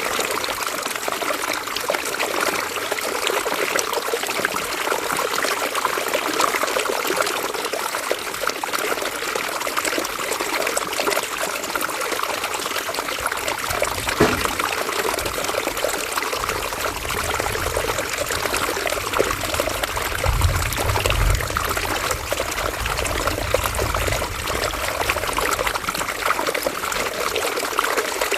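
River water trickling and flowing steadily. A low rumble joins about halfway through and lasts around ten seconds.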